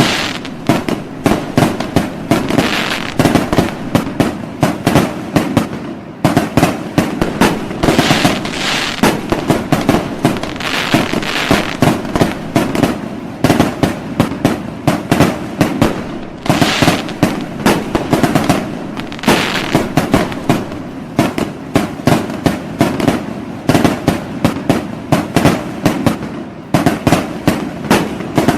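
Fireworks and firecrackers going off continuously: a rapid, unbroken run of sharp bangs, several a second, with spells of crackling.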